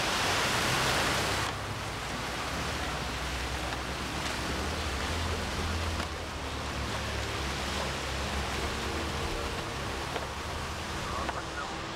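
Steady rushing, splashing water from racing K4 kayaks, four paddlers to a boat stroking hard, mixed with wind rumble on the microphone. The noise is louder and brighter for the first second and a half, then settles to an even level.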